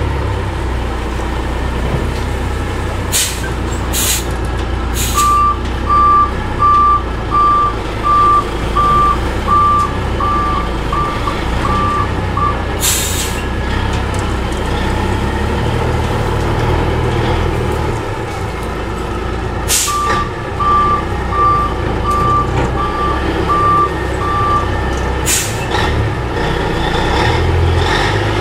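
Heavy dump truck's diesel engine running as it maneuvers, its reversing alarm sounding in two runs of steady beeps, about three every two seconds. Several short air-brake hisses break in.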